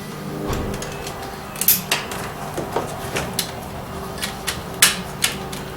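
Sharp plastic clicks and knocks, several of them spread irregularly, as wiring plugs are pushed into the power window and door lock switch assembly of a door.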